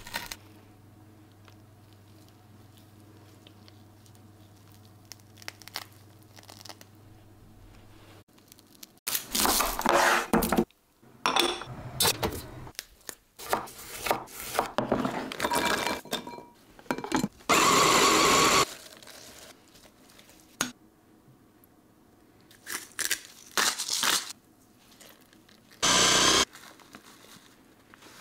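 Kitchen food-preparation sounds. A faint low hum runs through the first few seconds. Then comes a string of crisp knife cuts through tomatoes and bread on a wooden cutting board, with loud bursts about a second long from a small electric food chopper, one near the middle and one near the end.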